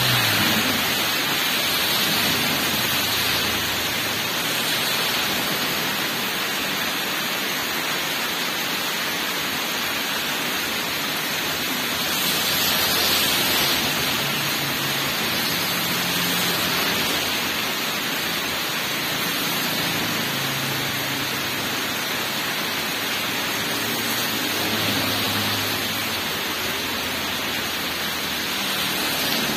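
Heavy rain pouring down steadily onto a wet road, a dense even hiss, with a car's tyres swishing through standing water at the start.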